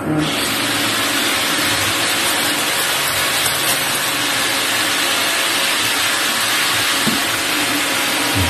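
A carpenter's electric power tool running steadily while fitting a doorknob to a door: a loud, even whirring noise that starts abruptly and keeps going without a break.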